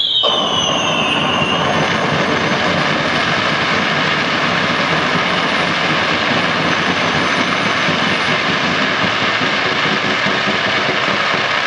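Firework fountain (gerb) spraying sparks with a loud, steady rushing hiss. A firework whistle sliding down in pitch fades out in the first second and a half.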